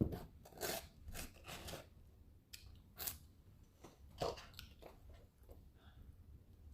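Fried chicken being bitten and chewed, with a few irregular crunches.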